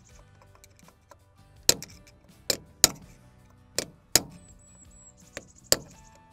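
Hammer blows on a punch against the steel lock tab of a Land Rover Series III front wheel-bearing nut: about seven sharp metallic taps, irregularly spaced, over faint background music.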